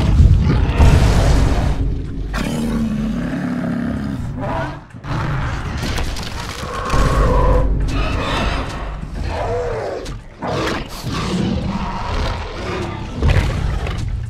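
Dinosaur fight sound effects for a T. rex and a Spinosaurus: a run of roars and growls, one after another, with heavy booming thuds underneath.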